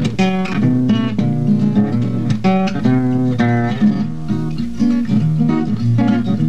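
Acoustic guitar music, chords strummed and notes picked in a quick, even rhythm over changing bass notes.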